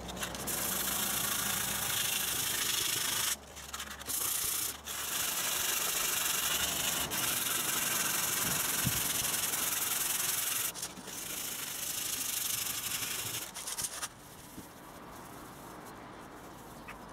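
Dry sandpaper, 120 grit, rubbed by hand over the painted car door panel in steady scratchy strokes, taking the thickness off the scratches and dents. The rubbing pauses briefly a few times and goes quieter for the last few seconds.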